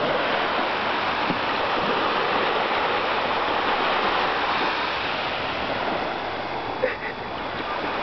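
Sea surf washing onto the shore: a steady rushing wash of waves.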